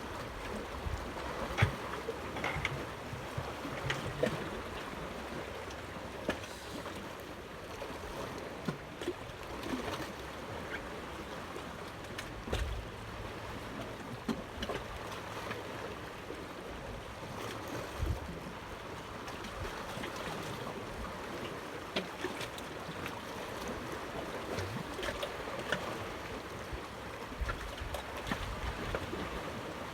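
Steady wash of water and wind, with scattered small knocks and clicks.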